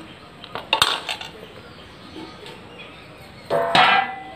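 A steel spoon knocking against a stainless steel mixing bowl: a few sharp clinks about a second in, then a louder clang near the end that rings on briefly.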